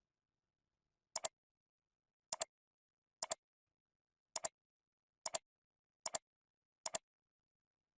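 Computer mouse button clicking seven times, about once a second, each click a quick double snap.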